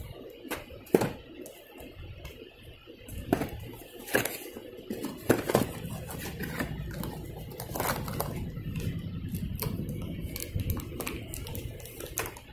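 Handling noise of goods and fittings being touched and moved about on wooden shelves and a glass display case: irregular knocks, clicks and taps, with a low steady hum through the middle.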